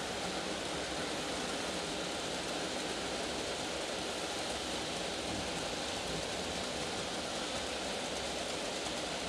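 N gauge model freight wagons rolling past on the track: a steady, even noise of small wheels running on the rails, with no separate clicks.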